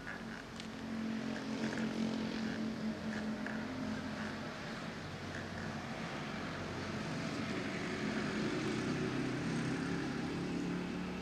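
Steady engine drone from an unseen motor, rising slightly in pitch past the middle.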